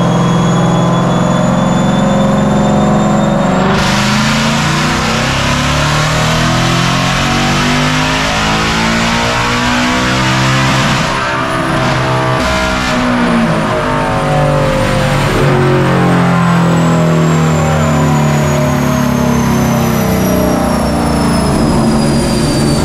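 Whipple-supercharged 5.0 V8 of a 2024 Ford Mustang GT making a full-throttle pull on a chassis dyno. The engine builds in revs, going to full power about four seconds in. Through the second half it winds down, with a high whine falling in pitch.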